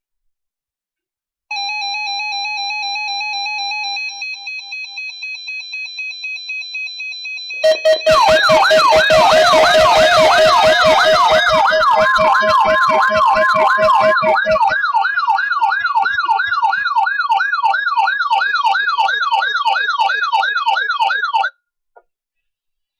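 Electronic siren tones: a steady alarm tone, then a pulsing tone, then a loud fast yelp siren wailing up and down about three times a second over a steady lower tone, cutting off suddenly near the end.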